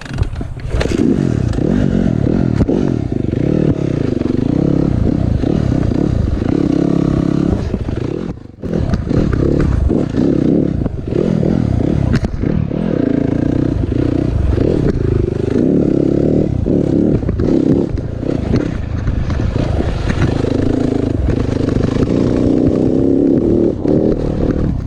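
Motocross dirt bike engines running and revving, the pitch rising and falling again and again, with a brief drop about eight and a half seconds in.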